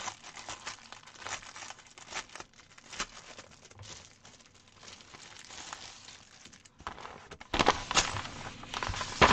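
Clear plastic bag and paper kit sheet crinkling and rustling as they are handled. Scattered light crackles, growing louder and denser about seven and a half seconds in.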